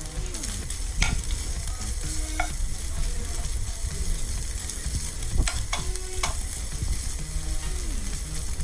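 Chopped boiled chicken sizzling in oil in a frying pan as it is stirred and mixed, with a few sharp clicks of the utensil against the pan.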